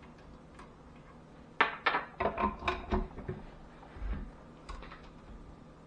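A quick run of knocks and clatters, hard kitchen items being handled and set down on a counter, starting about a second and a half in, with a few softer knocks later.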